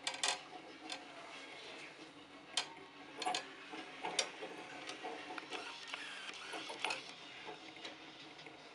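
Ball-and-beam control rig at work: its motor whirs steadily as it keeps tilting the beam, with the steel ball rolling on the steel rods. Several sharp clicks come now and then, the loudest about a third of a second in and around three and four seconds in.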